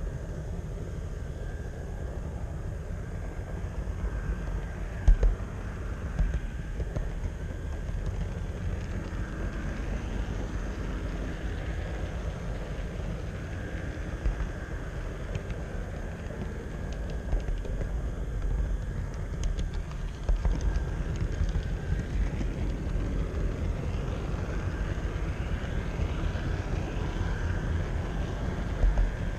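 HO-scale model train rolling along the track, carrying the camera: a steady low rumble of wheels and drive with a faint wavering whine, and a couple of sharper clicks about five and six seconds in.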